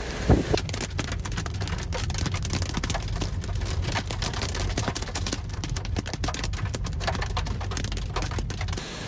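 Hailstones striking a vehicle, a dense patter of sharp clicks and knocks, several a second, over a low rumble of wind and engine. It starts abruptly about half a second in and stops just before the end.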